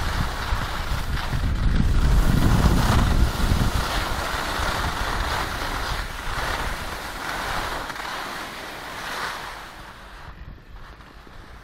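Wind rushing over the microphone while skiing downhill, with the hiss and scrape of skis on packed snow swelling and fading through the turns. The low rumble is heaviest in the first few seconds and everything quietens near the end.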